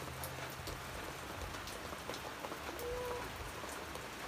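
Steady rain falling, an even hiss with many scattered drop ticks.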